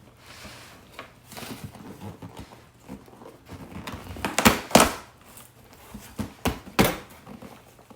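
Large package being pulled and torn open by hand: irregular rustling and knocks, the loudest around four and a half seconds in and again near seven seconds.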